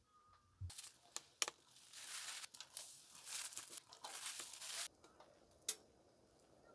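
Rustling and crinkling of handled material for about four seconds, with a few sharp clicks, stopping abruptly.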